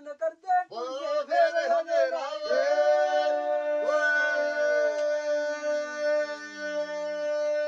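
Men singing a lambi bhaakh, an unaccompanied Punjabi folk song of long-drawn notes. A wavering, ornamented vocal line gives way about two and a half seconds in to several voices holding one long note together, with one voice sliding slowly down beneath it.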